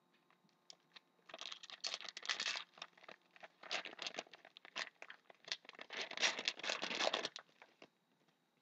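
Foil wrapper of a hockey card pack being torn open and crinkled, a run of crackling that starts about a second in and stops a second before the end.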